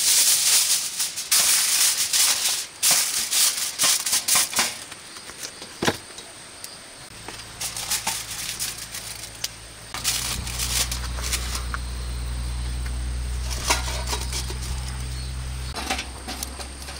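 Aluminium foil crinkling and rustling as a sheet is handled, loud and busy for the first few seconds, then lighter rustles and clicks. A low steady hum comes in after about seven seconds and grows stronger after ten.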